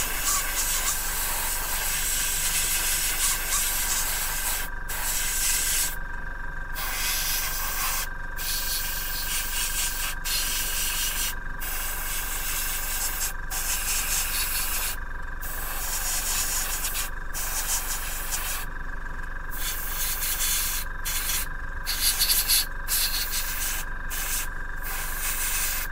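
Gravity-feed airbrush spraying paint: a steady hiss of air cut off and restarted about a dozen times in short breaks as the trigger is released and pressed again. A steady thin tone and a low hum run underneath.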